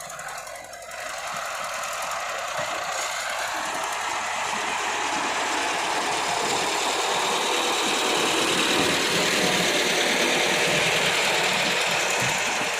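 Heavy diesel machinery running, growing louder over the first few seconds and then holding steady.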